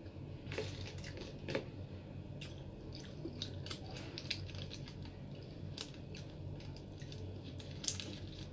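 Close-miked chewing and wet mouth sounds of a person eating rice and fried fish by hand: irregular smacks and small clicks, with a louder smack about a second and a half in and another near the end.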